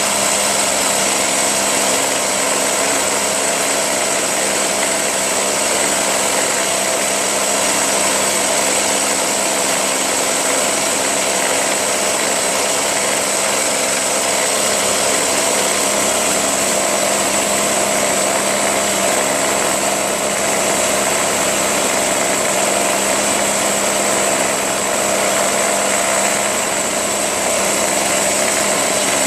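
Ryobi backpack leaf blower's 25.4cc two-stroke engine running steadily with a high whine. It keeps running because it does not stop when the kill switch is pressed.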